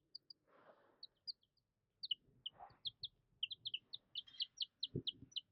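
Two-day-old olive egger chicks peeping: short, high chirps, scattered at first and then coming about three a second from midway on. A soft thump comes near the end.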